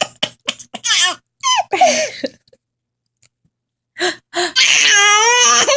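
A young child giggling in short bursts at a mock sneeze, then a pause, then a long, wavering drawn-out 'aaah' wind-up that leads into the next playful fake sneeze.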